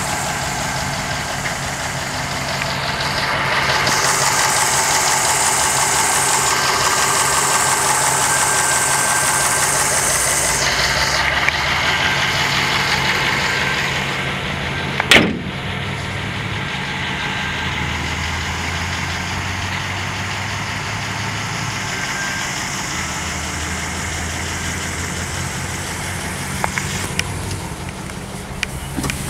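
1955 Ford Fairlane's engine idling steadily, with a louder hiss over much of the first half. There is one sharp knock about halfway through and a few small clicks near the end.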